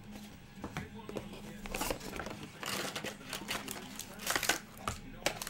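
Cardboard trading-card box being opened by hand: the outer sleeve slides off and the box and packaging scrape and rustle, with a few sharp clicks in the second half.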